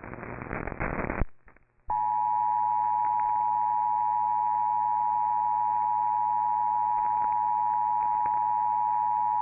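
Emergency Alert System two-tone attention signal: a loud, perfectly steady alarm of two close pitches sounding together, held for about eight seconds. It is the broadcast warning that comes before an urgent National Weather Service message. The tone starts about two seconds in, after a second of crackly hiss and a brief gap.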